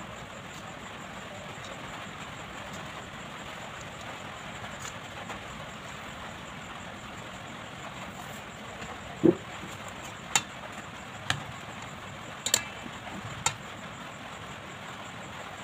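Steady background hiss, then from about nine seconds in a dull knock followed by four sharp clinks of a metal spoon against the rice-cooker pot as chicken curry is spooned onto the rice.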